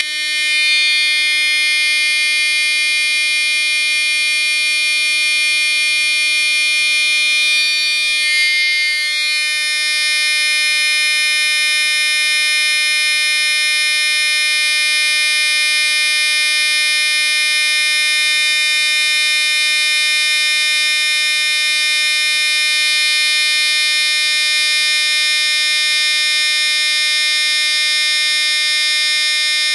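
Wheelock fire alarm horn, run off a 24-volt transformer, sounding one continuous, loud, buzzy horn tone with no pulsing. Its upper tone wavers briefly about eight seconds in, then settles again.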